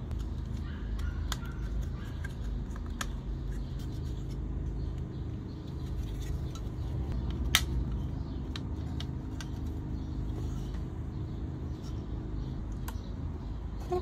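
Scattered small clicks and taps of plastic joystick parts and a screwdriver being handled, with one sharper click about seven and a half seconds in, over a steady low rumble.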